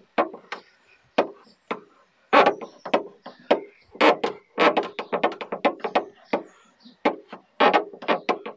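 A quick, irregular series of knocks and taps as a hammer handle works against the inside of a car's steel boot lid, levering dents out from behind the panel in paintless dent repair.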